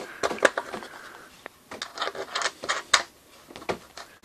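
A hand handling a knob and switch on a plastic RV switch panel: a string of small, irregular clicks and scrapes.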